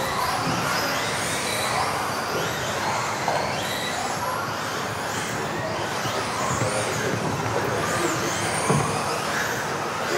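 A pack of electric RC off-road buggies racing together: many high-pitched motor whines rising and falling as the cars accelerate and brake, over a steady wash of tyre and drivetrain noise. Two sharp knocks stand out, about three seconds in and near the end.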